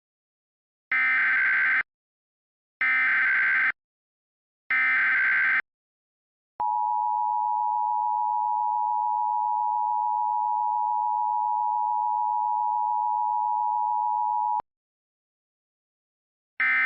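Emergency Alert System tones: three identical bursts of high, screeching digital header data, each just under a second long, then a single steady attention tone held for about eight seconds. Near the end another short data burst begins, the end-of-message code.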